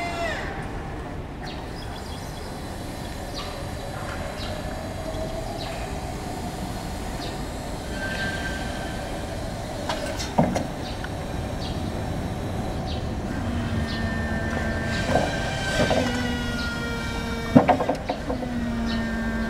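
Toyota 8FBN18 electric forklift's electric motors whining: a motor whine falls away at the start, shifting whines follow as the raised mast and forks come down, and a steadier whine comes in during the second half as the truck drives off. Two sharp clunks, about halfway through and near the end.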